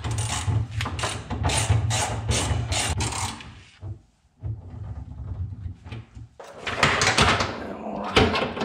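Hand ratchet clicking in quick strokes as it tightens the bolts of a brake bias valve onto a car's sheet-metal transmission tunnel, for about three and a half seconds. After a short lull come more clicking and rubbing as parts are handled on the tunnel near the end.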